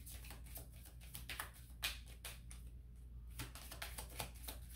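A deck of tarot cards being shuffled by hand, overhand, giving a quick, irregular run of soft card clicks with one sharper snap about two seconds in.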